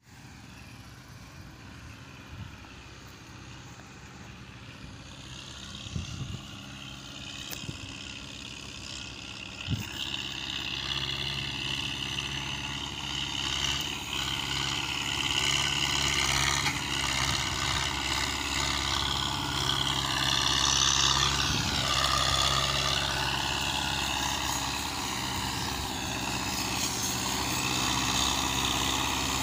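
Diesel farm tractor engine running steadily, getting louder and louder as it draws nearer, with a couple of brief knocks about six and ten seconds in.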